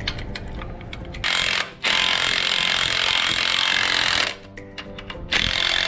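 Power impact wrench hammering in bursts, a short burst and then a long run of about two and a half seconds, with another starting near the end, as it tightens the centre bolt holding a torque converter driver pulley on a small engine's crankshaft.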